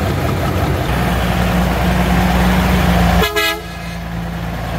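A heavy truck's diesel engine running, growing louder about a second in, with one short horn toot about three seconds in.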